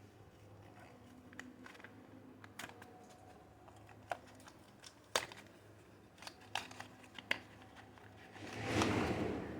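Soap packaging being handled and unwrapped: scattered light clicks and taps, then a louder rustle of the wrapper near the end.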